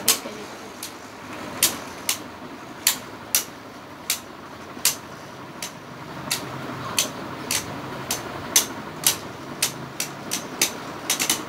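Two Beyblade spinning tops circling in a plastic stadium, clacking together sharply about twice a second, the hits coming quicker near the end.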